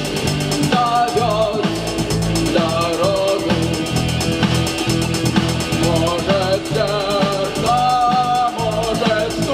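Rock band playing an instrumental passage: a melody line of held, bending notes over a steady drum-kit beat and bass.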